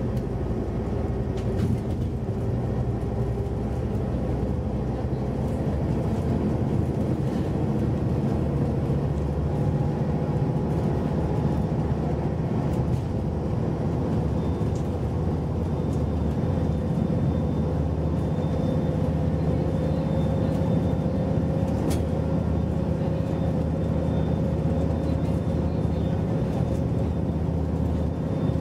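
Scania Enviro 400 double-decker bus driving at speed, heard from inside the passenger saloon: a steady diesel engine drone with road and tyre noise. The engine note rises a little about halfway through.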